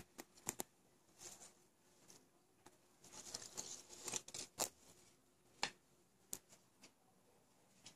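Faint handling noises: soft rustling and several sharp clicks as a plush dog purse with a clear plastic strap is moved about by hand.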